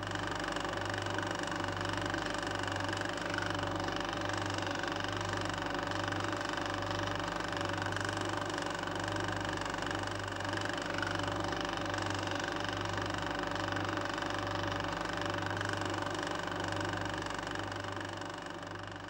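Steady mechanical hum with a slow, even low throb, fading out near the end.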